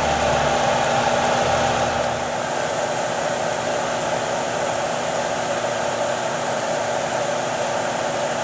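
UHF vibrating gold concentrator table running with water flowing across its deck: a steady machine hum under the hiss of running water. A lower rumble drops away about two seconds in.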